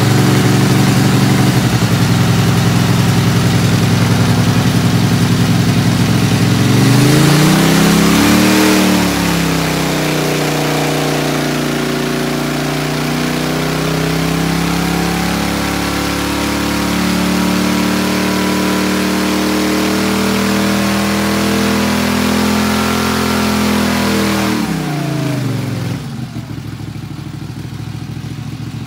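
Hot-rodded Briggs & Stratton Vanguard V-twin (long rods, shaved pistons, decked heads, high compression) running wide open on an engine dyno. Its pitch climbs and dips about eight seconds in, then holds under the absorber's load and creeps slowly higher. About twenty-five seconds in the throttle is let off, the pitch falls away and the engine drops back to a quieter idle.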